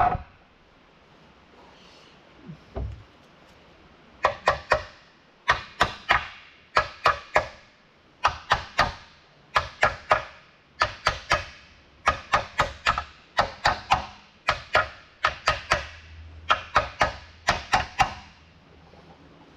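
Hammer blows on an old bearing race, driving the lower countershaft bearing into its bore in a truck transmission case. The blows come in quick bursts of two to four sharp, ringing metallic taps, about one burst a second, with a single heavy knock at the start.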